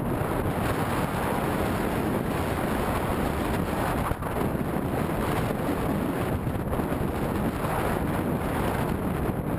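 Wind noise buffeting a helmet-mounted action camera's microphone while cycling: a steady rushing rumble, with a brief dip about four seconds in.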